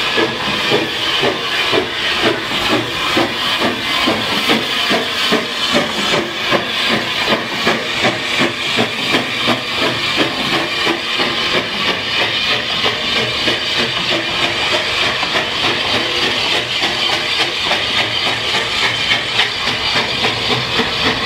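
Small tank steam locomotive working slowly along a platform: steady rhythmic chuffing from its exhaust, with hissing steam.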